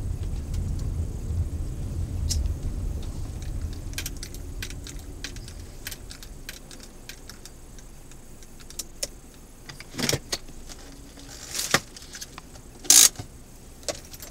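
Low rumble of a car moving slowly, fading as it comes to a stop. This is followed by scattered clicks and a few short rattling bursts from handling inside the cabin, the loudest near the end.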